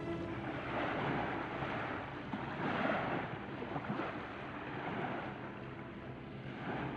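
Sea waves washing, a rushing hiss that swells and ebbs about every two seconds.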